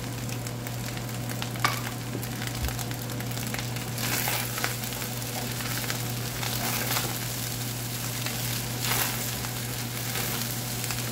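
Fried rice sizzling in a frying pan on the stove while a wooden spatula stirs it, with a few short scraping strokes against the pan, over a steady low hum.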